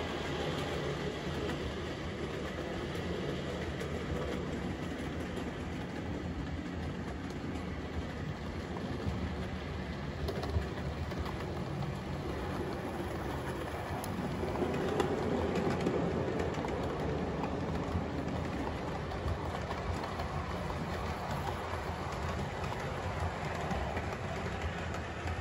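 00 gauge model diesel locomotive and its train of wagons running along the layout's track, growing louder about halfway through as it passes closest.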